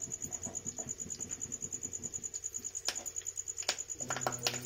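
Curry leaves, green chillies and mustard seeds sizzling and crackling with many small pops in hot oil in a kadai, the tempering for a chutney. A few sharper clicks about three seconds in, and a cluster near the end, come from a wooden spatula stirring against the pan.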